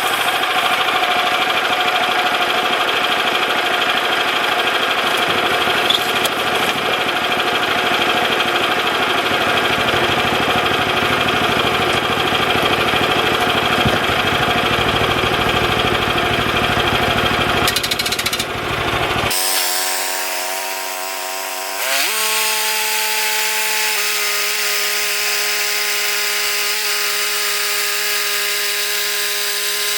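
Band sawmill running a Ripper 37 beveled-tooth blade through white oak, a loud, rough sawing noise over the running mill. About nineteen seconds in the sound changes abruptly to a steadier hum of several clear tones.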